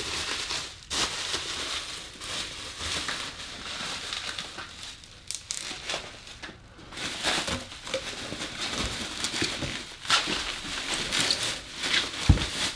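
Bubble wrap and plastic packaging crinkling and rustling as it is handled and pulled from a cardboard box, with a dull low thump near the end.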